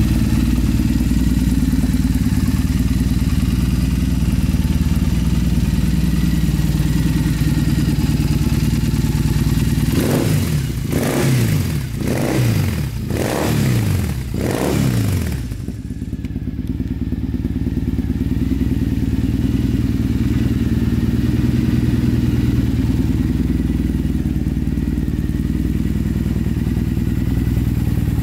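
Triumph Thruxton 900's 865 cc parallel-twin engine idling steadily, with four quick blips of the throttle about ten seconds in, each rising and falling in pitch, before it settles back to idle.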